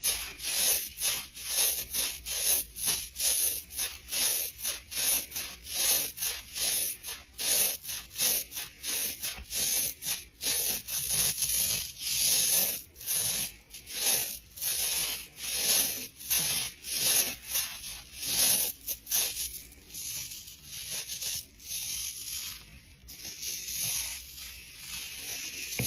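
Nylon tights being rubbed, a quick run of swishing, scratchy strokes about two a second, softening somewhat in the second half.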